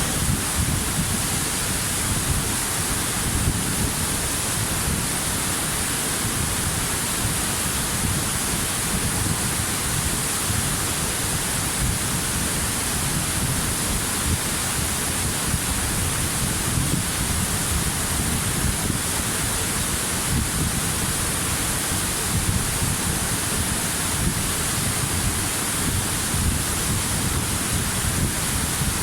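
Waterfall: water falling and rushing in a steady, unbroken roar of noise with a deep low rumble.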